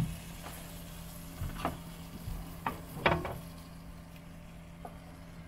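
Kitchen handling in a camper-van galley: a handful of short, light knocks and clacks, the loudest about three seconds in, over a steady low hum.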